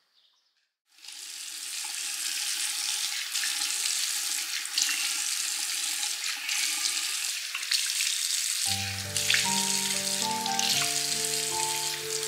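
Steady hiss of running water starts about a second in, after a brief quiet. Background music with held notes comes in later and plays over it.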